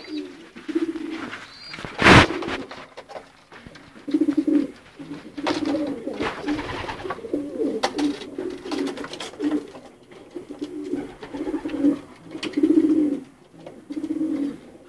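Racing pigeons cooing in a loft, with low, pulsing coos from several birds repeating throughout. A brief loud burst of noise comes about two seconds in.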